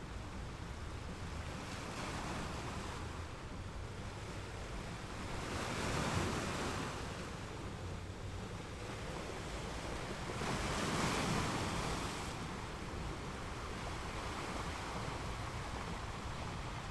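Sea waves on a beach: a steady wash of surf with two louder waves breaking, about six and eleven seconds in, each swelling and fading over a couple of seconds.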